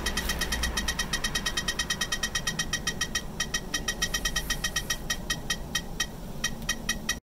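Fluke Victoreen radiation survey meter giving a short click-chirp for each detected count, rapid and uneven at around ten a second. The meter is held over radioactive red slag reading about 0.6–0.7 µSv/h, several times the normal 0.145 µSv/h background.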